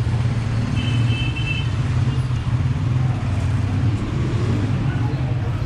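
Busy street traffic: a steady low engine rumble from nearby road vehicles, with a short high-pitched tone a little under a second long about a second in.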